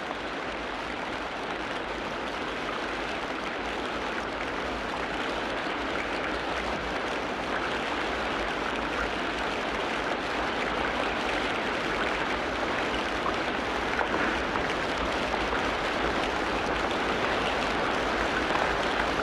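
Steady rush of water, an even hiss with no distinct calls, growing slightly louder over the stretch.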